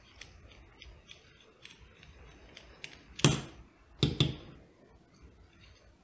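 Precision screwdriver backing the Phillips screws out of the back of a brass lock cylinder: a string of faint small clicks and scrapes, then two louder knocks a little over three and four seconds in.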